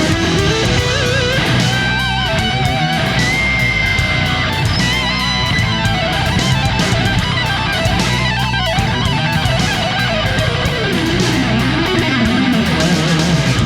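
Background music: loud rock with distorted electric guitar and bass, and a wavering melody line over a steady beat.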